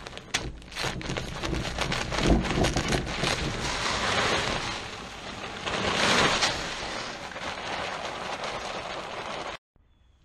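Plastic feed bag crinkling and being cut open with a few sharp clicks and taps, then poultry feed pellets pouring into a galvanized metal tub with a steady rain-like hiss and rattle, loudest about six seconds in. It stops suddenly near the end.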